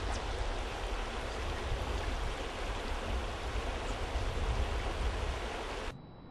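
Shallow river running over rocks: a steady rushing, with a low rumble underneath. It drops off suddenly near the end.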